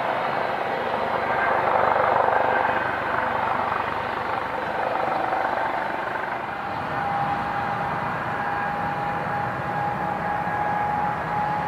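Jet airliner engines running with a steady rushing noise and a high turbine whine that sags slightly and then slowly climbs in pitch; the sound swells for a moment about two seconds in.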